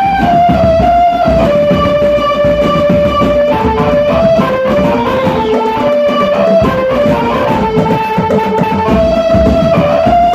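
Drum band playing: a melody line stepping from note to note over continuous drumming.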